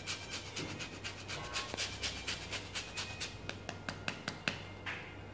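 Orange peel being grated on a handheld metal grater: quick repeated rasping strokes, about three a second, that stop near the end.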